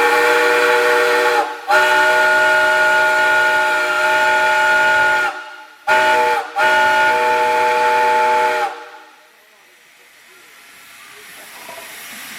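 Railroad steam whistle sounding a chord of several steady tones, blown in four blasts: one already sounding that stops about a second and a half in, a long blast, a short toot, and a final long blast that cuts off about nine seconds in.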